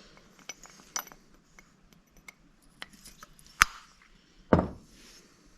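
Small metal parts and hand tools clinking and clicking as they are handled during engine head work, with a sharp click about three and a half seconds in and a dull knock about a second later.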